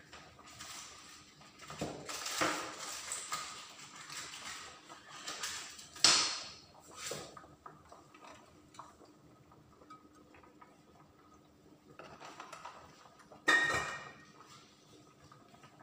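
Kitchen clatter of dishes and utensils being handled and set down, with a sharp clink about six seconds in and another near the end.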